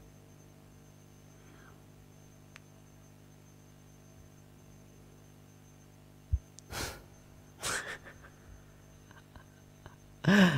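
Low steady hum under near-quiet, then two short breathy bursts about seven seconds in from a man laughing under his breath into a headset microphone, and his voice starting just before the end.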